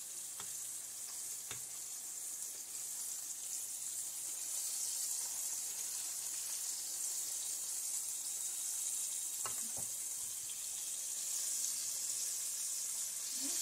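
Cornmeal-battered crappie fillets frying in hot oil in a pan, a steady sizzling hiss. A few light clicks come about a second and a half in and again near ten seconds.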